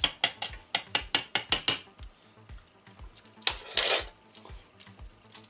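A quick run of about a dozen sharp clinks of kitchenware against the pan, then a short, louder wet splash as a cooked chicken leg goes into the cream sauce.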